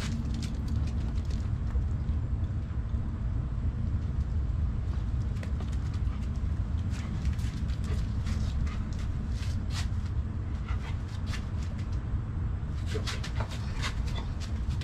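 Light scattered clicks and taps of a Belgian Malinois's paws and a man's flip-flops moving on a concrete driveway, over a steady low rumble.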